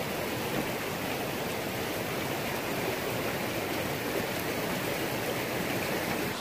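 Steady, even rush of a flowing stream.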